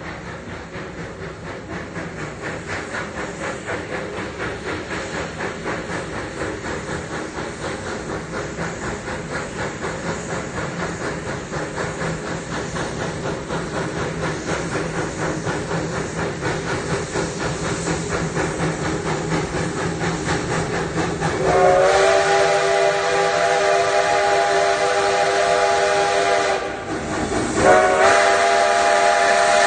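Train with rhythmic chugging at a couple of beats a second, growing steadily louder. About 22 seconds in, a whistle sounding several notes at once starts, breaks off briefly, and sounds again near the end.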